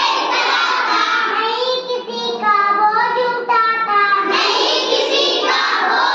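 A class of young children sing-chanting a Hindi poem together in a small room. From about two to four seconds in, a single voice carries the line alone, then the whole group comes back in.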